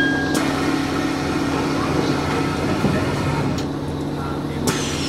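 Electric commuter train standing at a platform: the last note of a two-tone door chime ends just after the start. The train's steady electrical and air-conditioning hum follows, with a few faint clicks.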